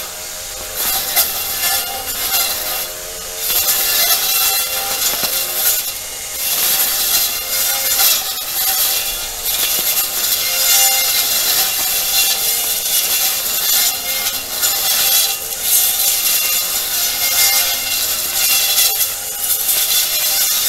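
Makita cordless brush cutter fitted with a Tsumura eight-tooth steel blade, running at speed and cutting through weeds and hard stems. It makes a steady whine that dips briefly a few times.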